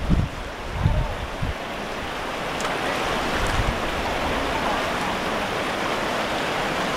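Swift stream water rushing steadily, with wind buffeting the microphone during the first second and a half.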